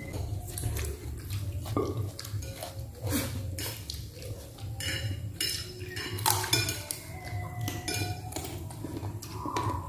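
A metal spoon and chopsticks clinking and scraping against ceramic plates while eating. The clinks are irregular and scattered, and some ring briefly.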